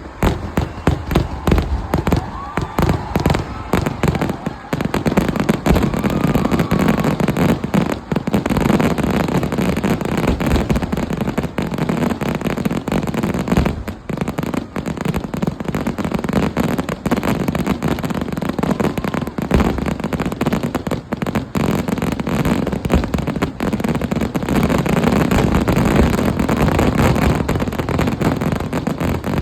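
Kerala temple-festival fireworks (vedikkettu) going off: rapid separate bangs for the first few seconds, then merging into a dense, continuous barrage of blasts.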